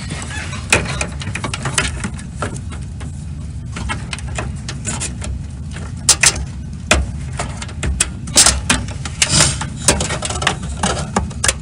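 Irregular sharp plastic clicks and light rattles of computer cables and connectors being handled and fitted, over a steady low rumble.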